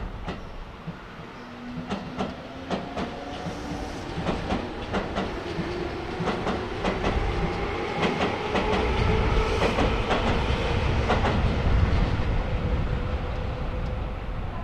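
Tobu Railway electric train passing and picking up speed. The wheels click over the rail joints, and a motor and gear whine climbs steadily in pitch.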